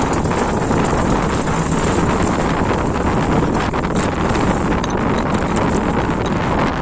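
Steady, loud wind buffeting the microphone on a small outrigger boat at sea, with the noise of the choppy water around the boat beneath it.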